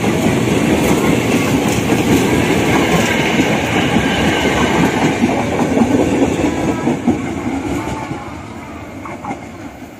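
KAI Commuter KRL 6000-series electric commuter train running past loudly on the track; the noise fades away over the last two seconds as it moves off.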